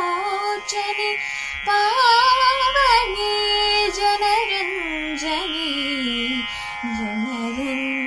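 A girl singing a Carnatic vocal melody on long held notes that glide and waver in ornamented bends, over a steady drone.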